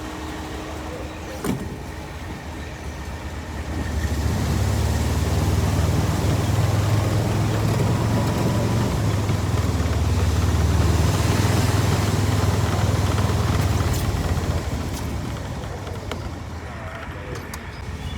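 A motor vehicle running with a low rumble that swells about four seconds in, holds steady, then fades away near the end.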